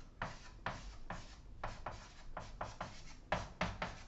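Chalk writing on a blackboard: a quick run of short scratchy strokes, with two louder strokes near the end.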